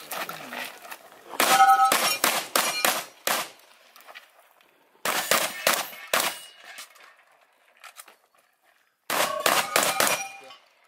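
Shotgun fired in three quick strings of shots with pauses between them. Steel targets ring with clear tones after some of the hits.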